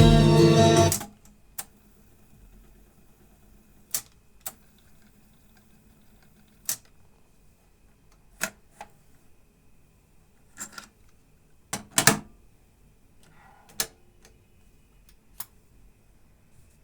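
Song playing back from the JVC KD-85 cassette deck cuts off abruptly about a second in. Then about a dozen short sharp clicks and knocks at irregular intervals, with the loudest pair near the middle.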